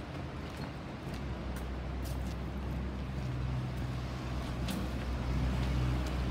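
A low, steady engine hum from a nearby motor vehicle, building up about a second in, with a few light footstep clicks over it.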